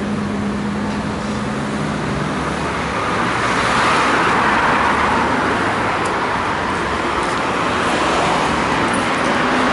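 Road traffic passing close by, a steady rush of tyres and engines that swells as a car goes past about four seconds in.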